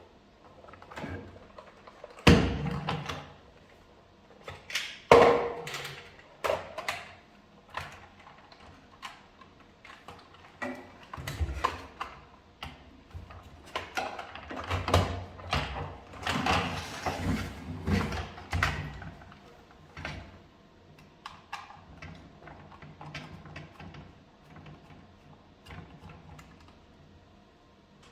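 Irregular clicks, knocks and rattles of hard plastic parts being handled and worked apart on a cordless stick vacuum during battery replacement. Two louder knocks come a couple of seconds in, and a busier stretch of handling follows in the middle.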